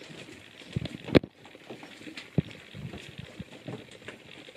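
Footsteps of people walking on a staircase: irregular thuds and knocks, the loudest a sharp knock about a second in.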